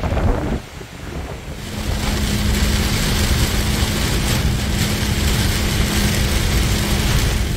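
Wind buffeting the microphone for the first second or so, then heavy rain drumming on a car's roof and windshield, heard from inside the cabin, with a steady low hum underneath.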